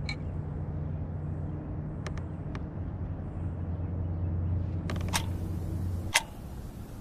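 A low, steady motor hum with a few light clicks; it stops abruptly with a sharp knock about six seconds in.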